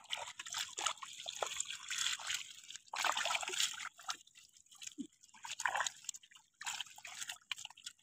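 Wet fine-mesh fishing net being gathered up by hand out of shallow water, with small fish in its bag: water sloshing, trickling and dripping through the mesh in irregular surges.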